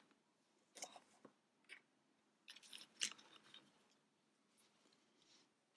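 Faint scratchy rustling of hands handling a small crocheted yarn toy, in a few short bursts, the loudest about three seconds in.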